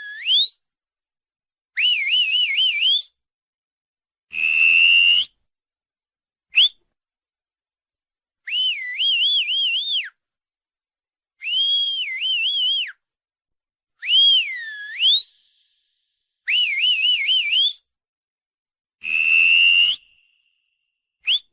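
Mouth whistling in a string of short separate phrases, each about a second long: mostly quick warbling trills, with one low swoop that climbs back up and a couple of steady notes that rise at the end, split by clean silent gaps.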